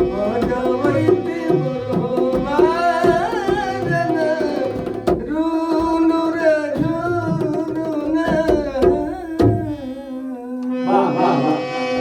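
A man singing a folk-devotional song with tabla accompaniment over a steady held chord. About ten seconds in the voice drops out and the sustained chord and drum carry on.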